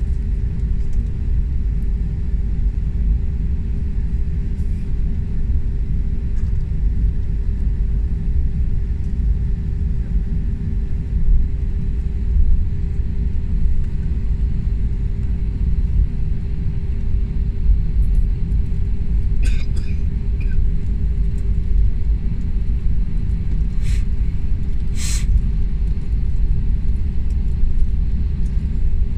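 Cabin noise of an Airbus A320-family airliner taxiing: a steady low rumble with a constant hum. A few short sharp noises stand out about two-thirds of the way in and again near the end.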